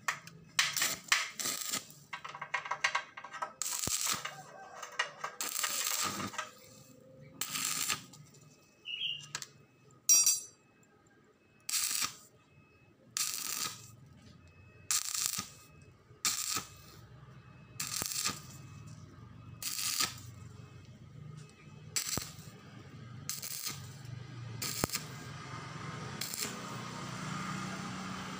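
Stick (arc) welder crackling in short bursts, roughly one every second and a half, as a used engine valve is tack-welded to a steel rod. One sharp crack stands out about ten seconds in, and near the end the arc runs longer as a steadier hiss.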